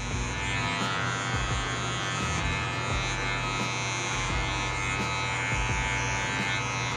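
Electric hair clipper with a guard comb buzzing steadily as it cuts short hair at the nape.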